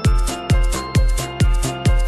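Electronic music for a segment break: a steady kick drum at about two beats a second under sustained synth notes.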